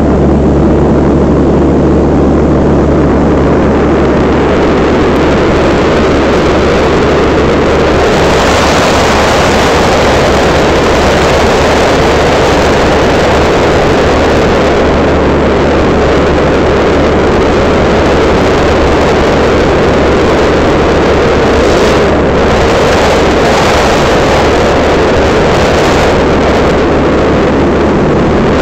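Light aircraft's piston engine and propeller droning steadily, heard loud from on board along with the rush of air.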